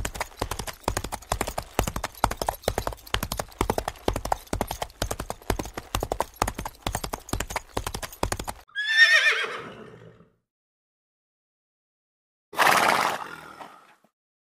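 Horse's hooves clip-clopping in a quick, steady run of hoofbeats. The hoofbeats stop, and the horse gives a whinny that falls in pitch. After a pause comes a shorter, rougher breathy call.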